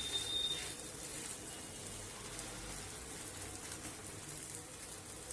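Faint, steady sizzling of a moong-flour roti cooking in oil on an iron pan.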